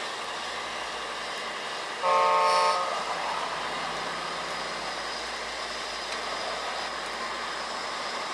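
A single short horn toot from an RC truck's sound unit, about two seconds in and lasting under a second, over a steady background noise of the running RC machines.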